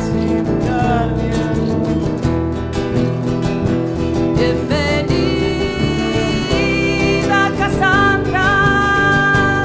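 Live acoustic folk music: guitars playing with a sustained melody line that holds a long high note near the end.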